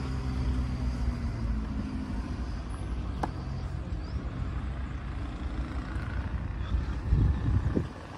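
Tennis ball struck by a racket once, a sharp pop about three seconds in, over a steady low rumble and hum; the rumble swells briefly near the end.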